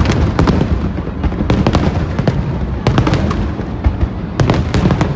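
Aerial fireworks display: a rapid, continuous string of sharp cracks and bangs over a dense rumble of booms.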